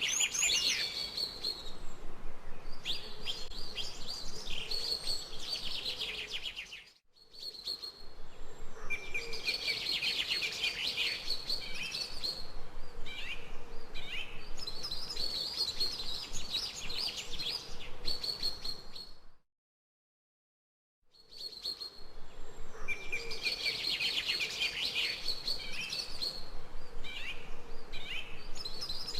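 Several small birds chirping and trilling over one another in quick, high-pitched bursts. The sound dips briefly about a quarter of the way in and cuts out completely for a second or two past the middle before the birdsong returns.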